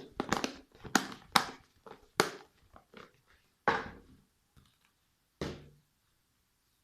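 Slime being put back into its plastic container and the container handled: a quick series of sharp clicks and knocks, then two heavier knocks, one midway and one later.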